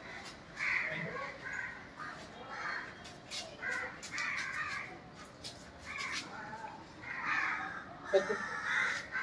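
Crows cawing over and over, harsh short calls in loose runs. There is one short, sharper sound about eight seconds in.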